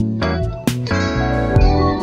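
Instrumental background music: plucked notes over a bass line, with a few drum hits.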